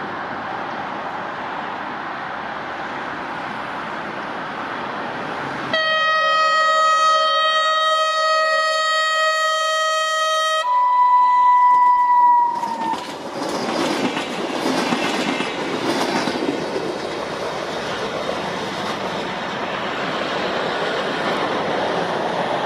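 Renfe UT-440 electric train sounding its horn as it passes at speed: one long low note, then a shorter higher note that sags slightly in pitch at the end. The rush and wheel clatter of the train going by follow. The horn comes after a few seconds of steady background noise.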